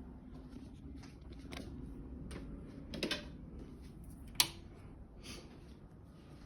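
Scattered faint clicks and taps, with a louder knock about three seconds in and one sharp click about a second and a half later.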